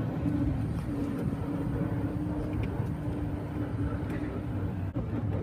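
Golf cart driving along: a steady motor hum over a low rumble of wheels and road.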